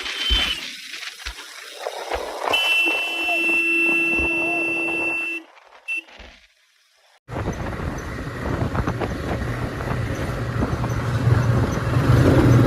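A steady held tone, like a horn, sounds for about three seconds. After a brief dropout, a motorcycle engine runs on the road with wind and road noise, getting louder toward the end.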